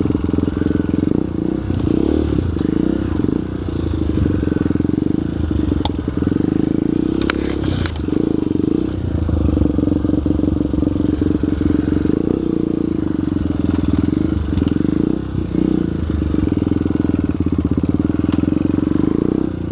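Trail motorcycle's single-cylinder four-stroke engine running continuously, its note dipping now and then as the throttle changes. A sharp knock comes about eight seconds in.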